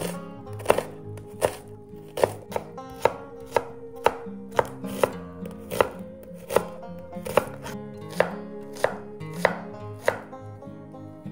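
Kitchen knife chopping on a cutting board, a sharp stroke about every three quarters of a second, over soft background music.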